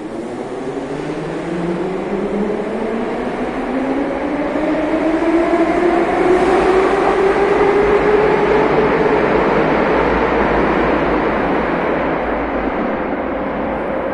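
Metro train pulling out of the station: the traction motors' whine rises steadily in pitch as it accelerates, over a loud rumble that swells for the first half and then holds.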